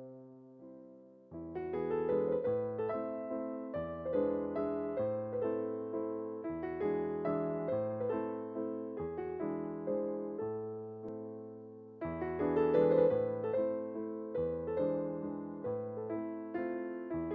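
Background piano music: notes and chords that each fade after they are struck, growing louder about a second in.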